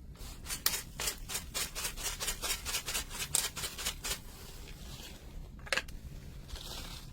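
Quick, evenly spaced scraping strokes, about five a second for some four seconds, then one sharper stroke and a soft hiss near the end.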